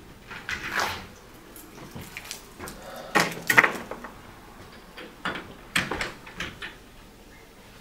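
A door being opened and handled, with footsteps: a series of clicks and knocks, loudest about three seconds in.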